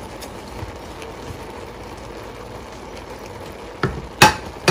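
A steady low hiss, then near the end a serving spoon knocks sharply two or three times against the metal cooking pot, the loudest knock ringing briefly.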